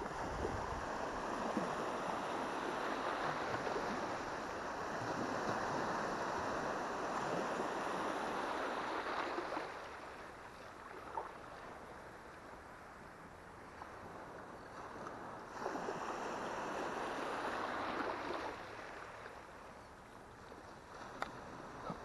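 Shallow saltwater swishing and sloshing around the legs of someone wading the flats, in a long stretch, then quieter for several seconds, then again for a few seconds.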